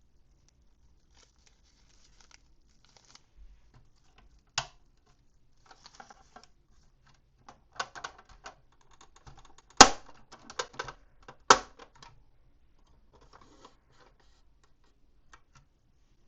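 Toy packaging being handled and opened by hand: scattered rustles, crinkles and small taps, with three sharp clicks or snaps, the loudest about ten seconds in.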